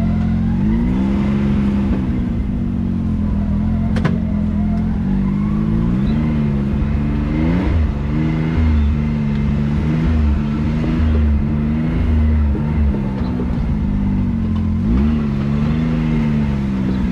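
Side-by-side UTV engine running under load, its pitch rising and falling again and again as the throttle is worked, with a single sharp knock about four seconds in.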